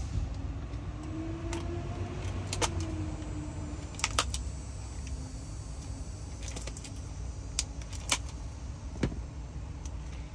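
Scissors handled and snipping at packaging, heard as scattered sharp clicks at irregular intervals over a steady low hum.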